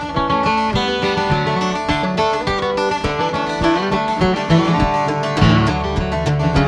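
Solo steel-string acoustic guitar picking a lively Celtic folk melody over bass notes, many quick notes in a steady rhythm.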